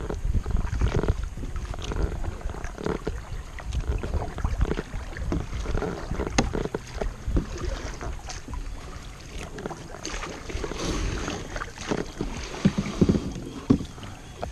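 Kayak paddle strokes: the blades dip and splash irregularly, with a few sharp knocks, over a low rumble.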